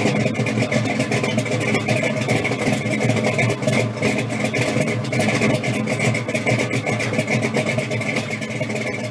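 Supercharged 302 small-block V8 of a 1969 Camaro Z28 pro street car idling steadily.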